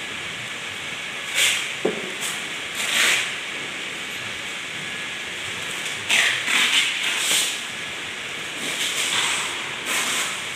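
Plastic crates being handled and moved over a tiled floor: several short scraping, rustling noises over a steady hiss.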